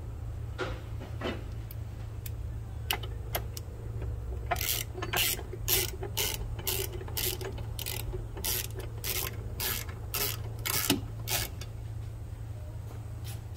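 Ratchet wrench driving in a bolt on a rear differential brace: a few loose metal clicks, then a steady run of ratcheting strokes, about two a second, for some seven seconds. A steady low hum lies underneath.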